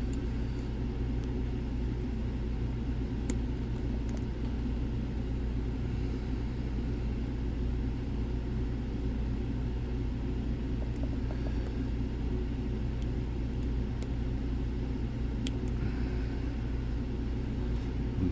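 A steady low rumble throughout, with a few faint scattered ticks of a lock pick working the pins of a Lockwood Twin padlock.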